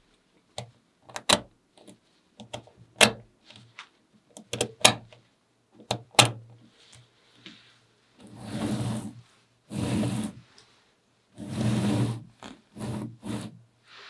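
Small magnetic balls snapping with sharp clicks as a finger presses down the domes of a pop-it fidget toy built from them, about a dozen clicks over the first seven seconds. From about eight seconds in come several longer rattling, grinding sounds of about a second each as the whole slab of balls is gripped and turned over.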